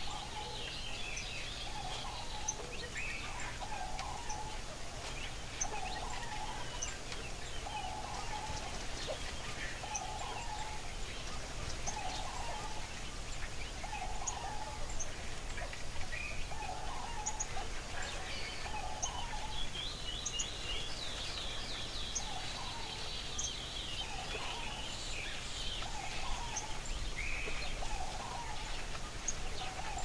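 Outdoor bird calls: a short low call repeated about every second and a half, with higher chirps and brief trilled song phrases from small birds, loudest about two-thirds of the way in.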